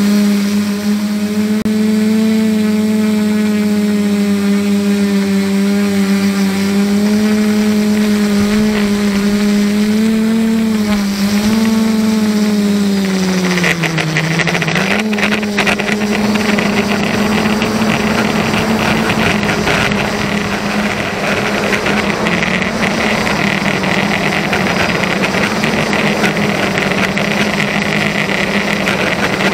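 Brushless SunnySky motors and propellers of a 500mm drone in flight: a loud, steady hum with many overtones, picked up through the camera on its vibrating frame. The owner says it sounds like a tractor. About halfway through, the pitch dips briefly and the sound turns rougher and hissier.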